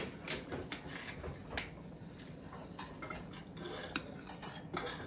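A metal fork clinking and scraping against a ceramic bowl and plate while food is picked up, in a scatter of light, irregular clicks.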